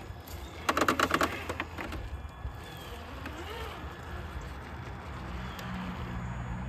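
Traxxas TRX-4 RC crawler's brushed electric motor and geared drivetrain whining as the truck climbs over a tree root, with a quick run of clattering knocks about a second in. The motor's pitch rises near the end as it pushes up the climb.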